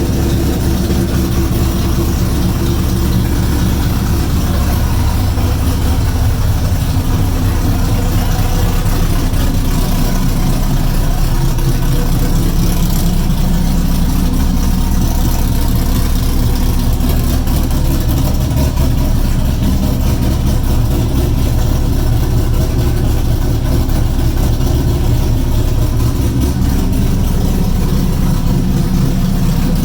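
A 2002 Corvette's cammed LS1 V8 with long-tube headers idling steadily.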